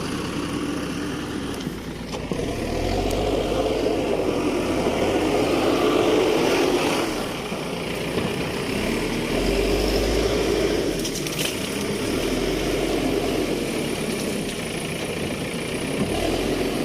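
Escorts Digmax II backhoe loader's diesel engine running, its sound swelling and easing several times as the machine works.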